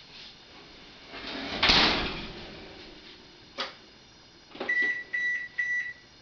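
Oven being loaded and set: a clatter and bang about two seconds in, a click, then three short high beeps from the oven's controls.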